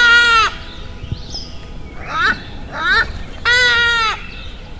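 Indian peafowl (peacock) calling: a long wailing call at the start, then two short rising calls and another long, drawn-out wail near the end.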